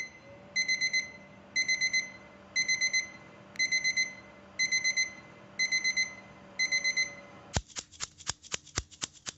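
Electronic kitchen beeper sounding four quick beeps about once a second. About seven and a half seconds in it gives way to sharp clacks from small metal tins being shaken and knocked.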